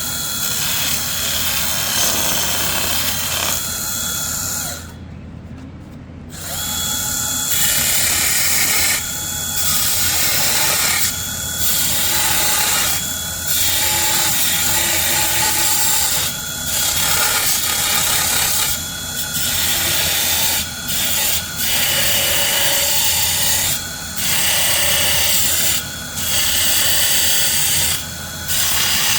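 Small power tool cutting away plastic from a door trim piece, run in repeated bursts of a second or two with brief pauses between them after a short lull.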